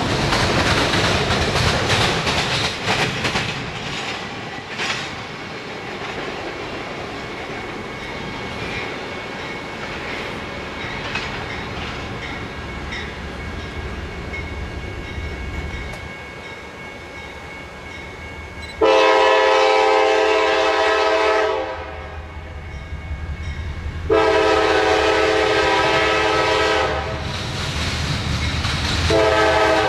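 Diesel locomotive horn on an approaching freight train, sounding a chord in two long blasts about 19 and 24 seconds in and starting a third just before the end. Before that, the rumble and wheel clatter of a passing train fades away.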